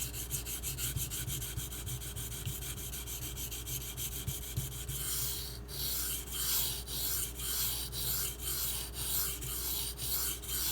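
Knife blade of M390 steel scraping back and forth on the 1000-grit side of a Bernal Cutlery Takarazukushi whetstone, freshly flattened with a coarse surface that cuts aggressively. Quick short strokes for the first few seconds, then slower, longer strokes.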